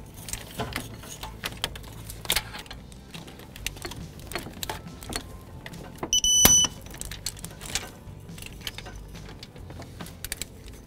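Electronic torque wrench giving a short beep, about six seconds in, on reaching its set torque of 32 ft-lb while a serpentine belt tensioner bolt is tightened. Scattered ratchet clicks and metal tool clinks are heard around it.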